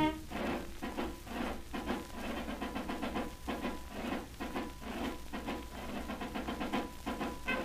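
Quiet, evenly repeating drumming from an orchestra's side drums, played back from an old 78 rpm record under a steady hiss of surface noise.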